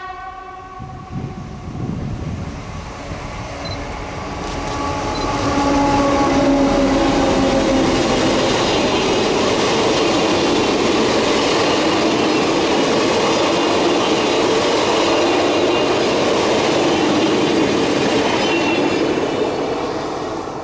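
A double-deck commuter train passing close by: a whine slowly falling in pitch as it approaches, then a loud steady rush of wheels on rail as the coaches go past, fading near the end.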